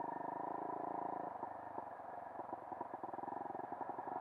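Electronic dance music with a held synthesizer tone and a fast pulsing beat.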